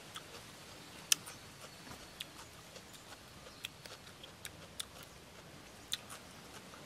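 Sparse, irregular clicks and smacks of eating raw shrimp: chewing and handling the shrimp with the fingers, with one sharper click about a second in.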